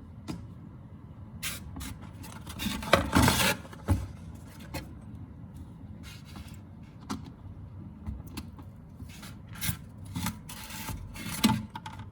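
Irregular rubbing and scraping handling noises, in bursts that are loudest about three seconds in and again near the end, over a steady low hum.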